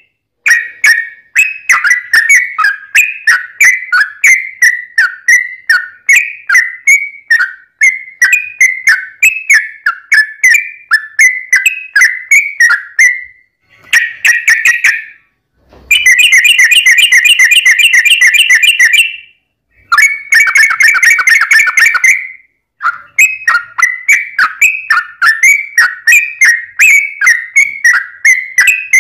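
Yellow-vented bulbul (trucukan) singing: long runs of short whistled chattering notes, a few a second, broken by brief pauses, with two faster rolling trills in the middle.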